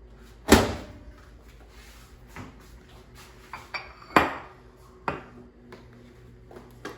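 Knocks and clinks of a hot, lidded microwave-safe dish being taken out of the microwave and set down: a loud knock about half a second in, another about four seconds in, and a few lighter taps between and after.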